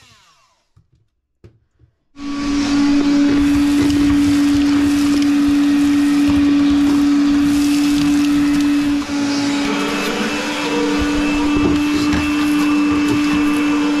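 Wet/dry shop vacuum switched on about two seconds in and running steadily with a strong motor whine and rushing air as it sucks up debris around a floor duct opening.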